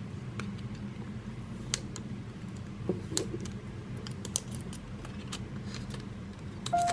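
Thin plastic protective film being peeled and handled on an Apple power adapter's plastic plug: scattered small crinkles and clicks over a steady low hum.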